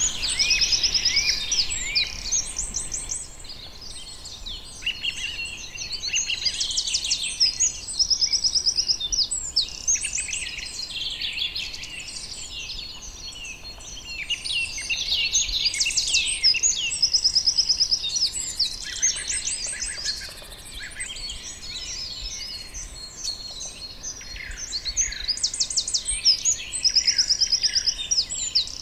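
Several songbirds singing together: rapid high trills and chirps, louder in stretches of a few seconds. The hoopoe's own low 'oop-oop' call is not among them.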